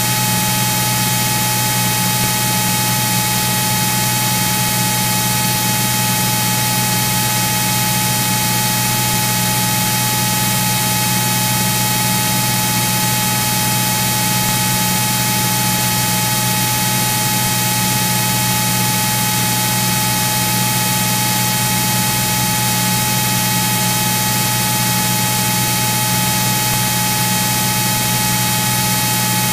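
Steady static hiss with a constant electrical hum and a high whine on a Cirrus SR22's cockpit radio and intercom audio while the frequency is quiet between transmissions.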